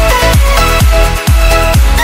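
Background electronic dance music with a steady kick-drum beat and synth melody.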